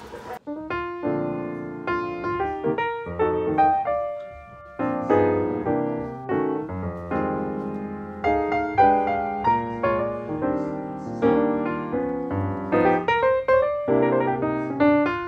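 Background piano music: a quick run of notes over chords, starting about half a second in.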